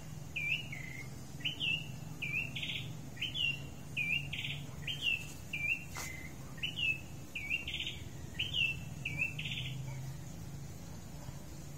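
A bird calling over and over: short chirping notes, some followed by brief buzzy trills, about one or two a second. The calls stop about nine and a half seconds in. A steady low hum runs underneath.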